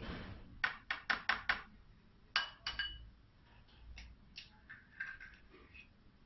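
An egg being cracked against the rim of a bowl: five quick taps, then two sharper clinks, the second one ringing, followed by softer handling sounds.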